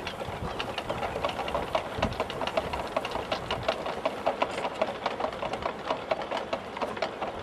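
Many plastic bleach-bottle windmills turning in the wind on wire, making a dense, uneven clicking and rattling like a small machine, over a steady rush of wind.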